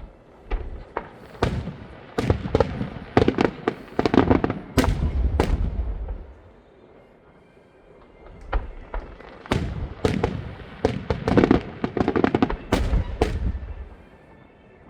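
Fireworks going off in rapid volleys: a dense run of sharp bangs with deep booms underneath, a short lull about halfway, then a second run of bangs that fades out near the end.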